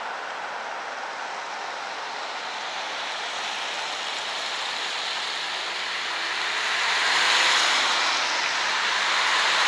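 Cars driving over a wet road, their tyres hissing, growing louder as the first cars pass close about seven seconds in.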